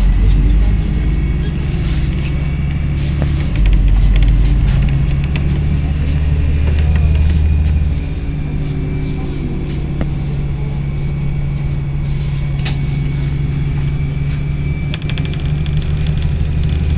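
MAZ-203 city bus riding along, heard from inside the passenger cabin: a steady low engine and road hum that grows louder from about three to eight seconds in, then eases, with scattered clicks and rattles and a faint high whine.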